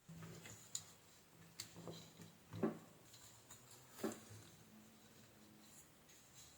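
Faint scattered clicks and knocks, about five in all, of hands handling the opened hair dryer's plastic housing and internal parts.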